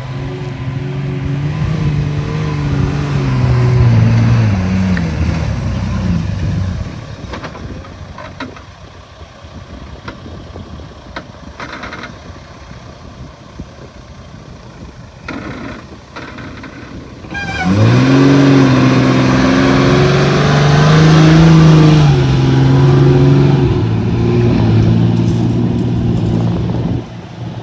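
Toyota LandCruiser HZJ75's 4.2-litre diesel straight-six working under load, towing a trailer up a soft sand hill: the engine note rises and falls, drops away for about ten seconds in the middle, then comes back suddenly loud with a rising pitch about two-thirds of the way through.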